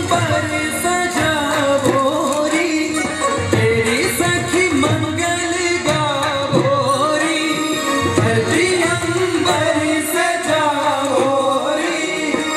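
Rajasthani folk song: a singer's voice carried by keyboard melody over a steady drum beat.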